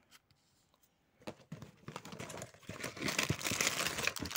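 Plastic toy mystery-pack wrapper crinkling as it is handled: scattered rustles from about a second in, building to a dense, continuous crinkle in the second half.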